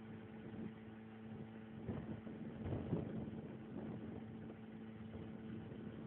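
A small boat's engine running steadily under way, with a rushing hiss over it that surges briefly about two to three seconds in.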